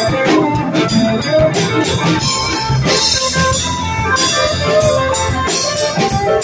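Live rock band playing: a Stratocaster-style electric guitar over keyboard and a drum kit keeping a steady beat.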